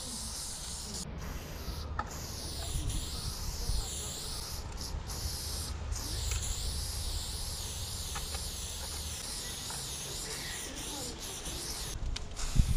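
Aerosol spray-paint can hissing as graffiti is sprayed on a wall, in long passes that break off briefly several times.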